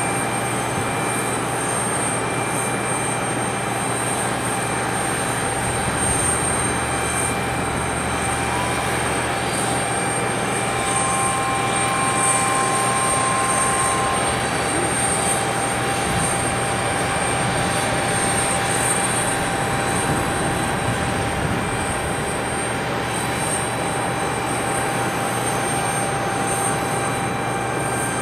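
Aquila A210 light aircraft's four-cylinder Rotax piston engine and propeller running steadily, heard across the airfield.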